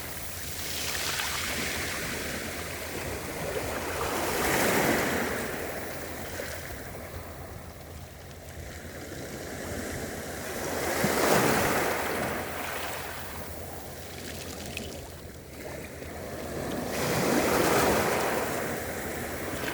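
Gentle sea waves breaking on a beach and washing back, the surge swelling and ebbing about every six seconds, with four swells.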